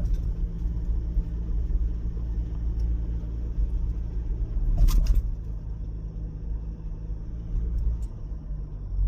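Steady low rumble of a car driving along an expressway, with one brief louder bump about five seconds in.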